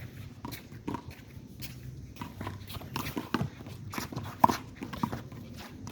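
Irregular sharp slaps and knocks of a handball rally: the rubber ball struck by hand and smacking off the wall and ground, with footsteps scuffing between hits. The loudest smack comes about four and a half seconds in.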